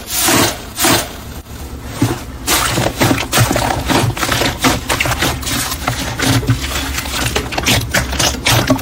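Slime being squeezed and worked by hand: a few soft swishes, then from about two and a half seconds in a dense, irregular run of crackling clicks and pops.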